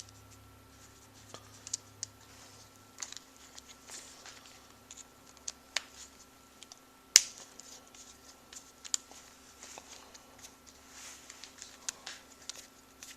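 Small screws being worked out of an RC truck's transmission case by hand, with scattered light clicks and scrapes of the tool and parts and one sharper click about seven seconds in.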